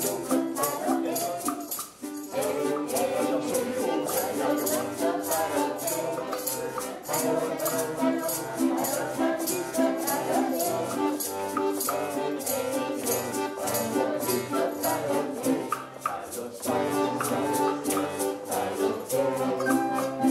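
Background music with pitched instruments over a quick, steady shaker-like percussion beat.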